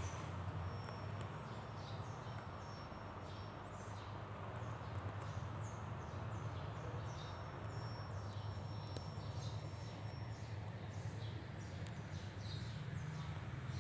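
Steady low background hum, with faint short high chirps scattered throughout and a thin high steady whine heard twice, each for a few seconds.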